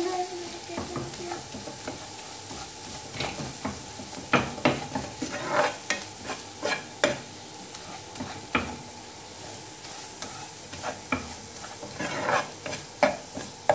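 A spatula scraping and knocking against a nonstick frying pan as a thick onion-tomato masala is stirred and fried, with a light sizzle underneath. The scrapes come irregularly, in bunches of several quick strokes. This is the bhuna stage, the dabeli filling frying after its dry spice mix has gone in.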